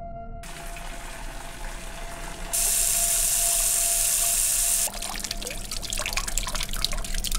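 Running water: a softer wash at first, then about two and a half seconds in a loud steady gush of water pouring from a tap for about two seconds, then water splashing and dripping into a metal bucket. A steady held tone runs underneath.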